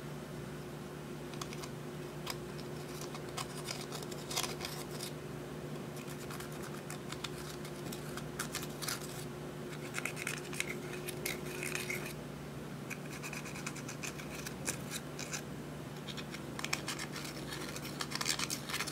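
Clear slime being worked by hand while eyeshadow is mixed in, giving irregular clusters of sticky crackles and small clicks, busiest about ten seconds in and again near the end, over a steady low hum.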